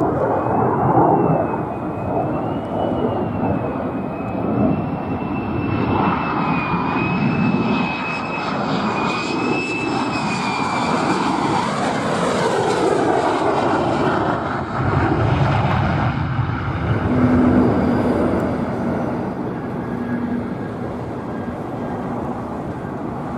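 F-35 Lightning's single F135 turbofan jet engine running loud. A high whine wavers over the roar for about ten seconds, then falls in pitch as the aircraft passes, and a steadier low drone follows.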